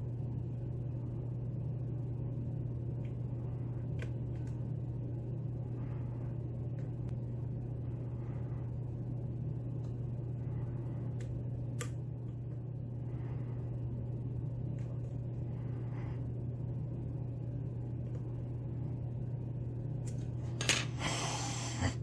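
Faint, scattered clicks and soft scrapes of a lock pick working the pins inside a pin-tumbler lock cylinder, over a steady low hum, with a brief louder noise just before the end.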